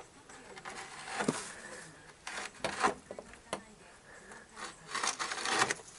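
Irregular rubbing and scraping in several short bursts, the loudest a cluster about five seconds in.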